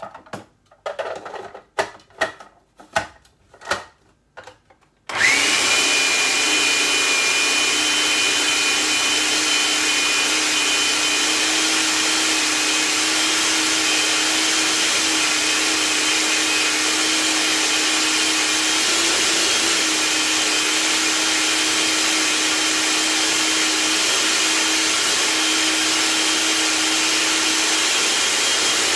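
Electric food processor running continuously from about five seconds in, its motor holding a steady whine as it grinds a thick chickpea and onion mixture. Before it starts there is a quick series of short knocks.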